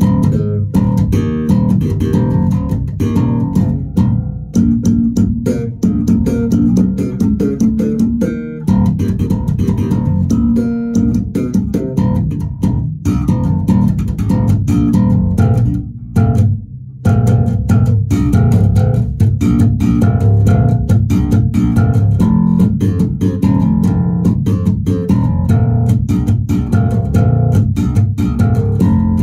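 Headless six-string multiscale Ibanez electric bass played solo through a bass amp: a fast, busy run of plucked notes, with a brief break about sixteen seconds in.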